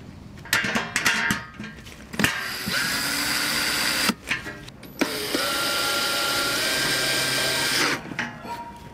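Cordless drill driving screws into the sheet-metal frame of a barbecue grill in two runs of about two and three seconds, the motor whining up to speed. Clicks and clatter of metal parts come before the first run.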